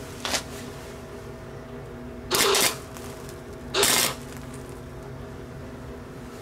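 Electric arc welder striking two short welds on thin metal rods, each a loud crackling sizzle of under half a second, about a second and a half apart.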